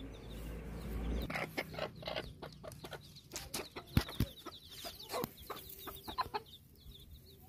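Domestic chickens clucking in short, separate calls, with a couple of sharp clicks about four seconds in and a low rumble in the first second.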